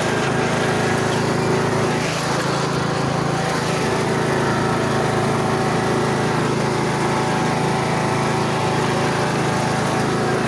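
Troy-Bilt riding lawn mower's engine running steadily while driving and towing a wagon, a continuous hum with a slight dip about two seconds in.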